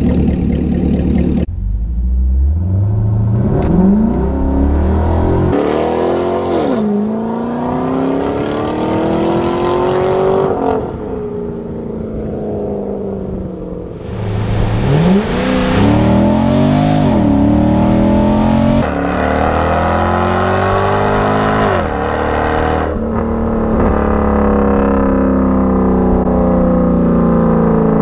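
The 2014 Chevrolet SS's 6.2-litre V8 through an X-pipe and Solo Performance J-pipe exhaust, loud under hard acceleration twice. Its pitch climbs through the gears and drops back at each upshift, then settles into a steadier cruise near the end.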